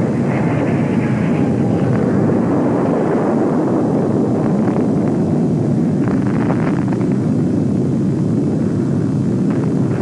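Military jet engine noise, a loud steady rush from a jet aircraft taking off and flying.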